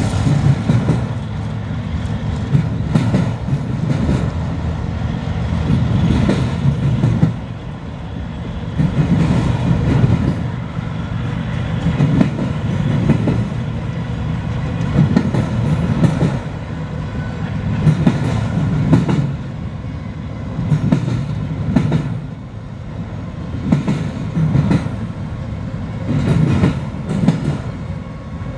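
Freight train of autorack cars rolling past: a steady low rumble of steel wheels on rail with clickety-clack, rising and falling repeatedly as the cars go by.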